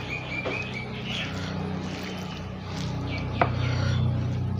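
Rice and fish curry being squeezed and mixed by hand on a steel plate, with eating sounds, over a steady low hum. A quick run of high chirps comes near the start, and a sharp click about three and a half seconds in.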